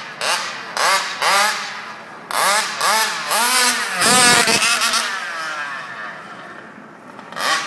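Bizeta BZM Micro 40cc two-stroke engine in an HPI Baja 5T 1/5-scale RC buggy, revved in a string of quick blips with the pitch sweeping up and down. It is loudest as the car passes close about four seconds in, then gives a long falling tone and fades as the car pulls away.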